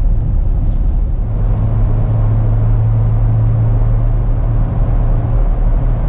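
Jeep Wrangler JL Rubicon driving at a steady speed: continuous low engine and road rumble, with a steady low drone that grows stronger for a few seconds in the middle.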